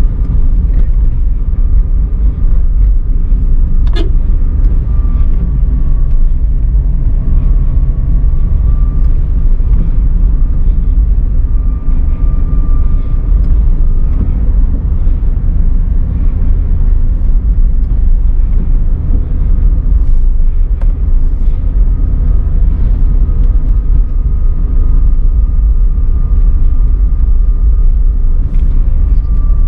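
Daihatsu Xenia R driving downhill, a steady low rumble of engine and road noise with a faint steady whine above it. A single sharp click sounds about four seconds in.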